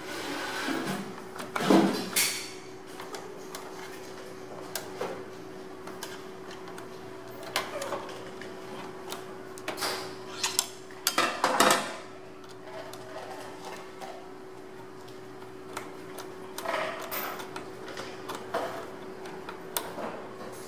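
Screwdriver work on a sealing machine's metal upper mold assembly: scattered small clicks and clinks of the tool and screws against metal parts as the screws are driven in, with louder knocks about two seconds in and again around eleven to twelve seconds in. A steady hum runs underneath.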